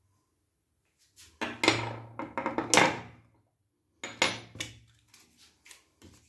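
Three-piece Edwin Jagger DE87 double-edge safety razor being handled and taken apart: metal clicks and rubbing in two bursts, the first about a second in and lasting about two seconds, the second near four seconds.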